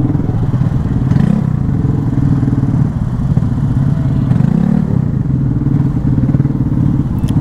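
Motorcycle engine running under way, its pitch rising briefly twice as the throttle is opened.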